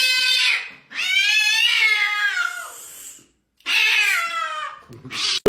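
Domestic cat meowing repeatedly in long, drawn-out calls. The longest lasts about two seconds and rises then falls in pitch, followed by a shorter meow and a brief one near the end.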